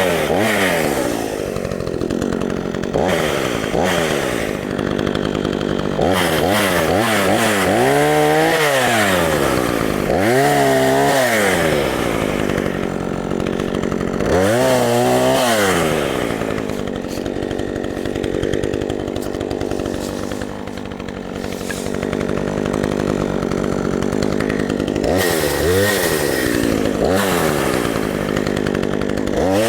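Craftsman 18-inch two-stroke chainsaw running, revved up briefly and dropping back to idle again and again, with a long stretch of steady idling in the second half.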